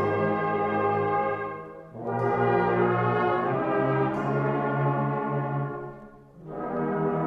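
A school junior brass band playing slow, sustained chords. The sound breaks off about two seconds in and fades out near the end, and each time the next chord comes straight back in.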